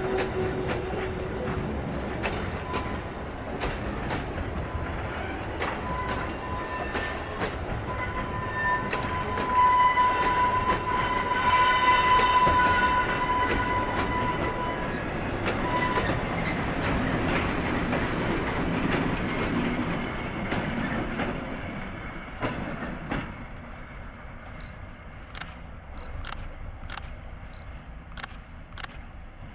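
Train of DB Cargo Polska dump wagons rolling slowly past, with a high wheel squeal that is loudest about ten seconds in. The T448.P diesel locomotive then passes with its engine running, and the sound fades as the train moves away, leaving a series of sharp clicks near the end.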